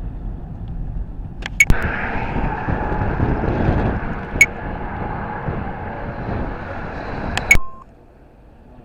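Steady vehicle rumble and road noise with a few sharp clicks, cutting off abruptly about seven and a half seconds in.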